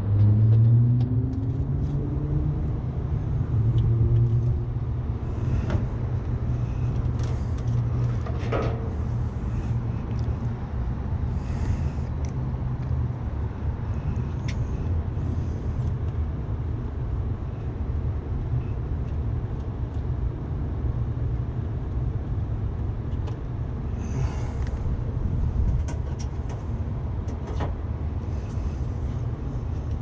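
Steady low rumble, with a tone rising in pitch over the first few seconds, and scattered light clicks and knocks of hands working among the wiring and test leads.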